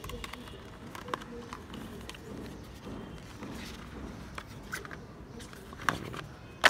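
Handling noise from unpacking a phone: a cardboard box and a clear plastic phone case being moved and fitted, with scattered light taps and clicks. Two sharper clicks come near the end.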